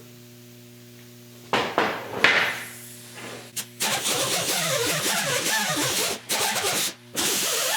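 Power-driven brass wire wheel scrubbing the inside of an aluminium intake manifold, starting with short bursts and then running loud and rough with brief pauses.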